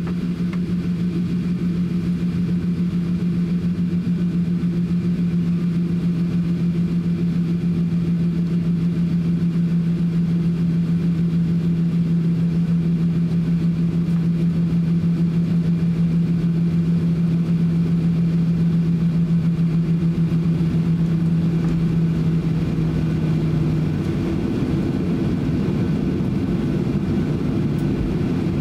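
Airliner cabin noise during taxi: the jet engines run at idle as a steady rumble and hiss. A strong steady low hum runs through it and cuts off a few seconds before the end, leaving the broad engine rumble.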